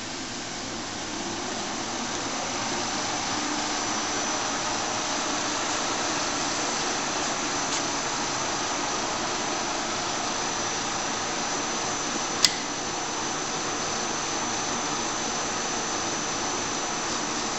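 Monarch 10EE lathe running under its 7.5 hp AC vector drive, building up over the first couple of seconds and then running steadily with a thin high whine. A single sharp click about twelve seconds in.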